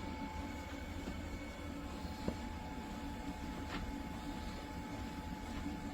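A steady low mechanical rumble with a faint constant whine, and a light click a little over two seconds in.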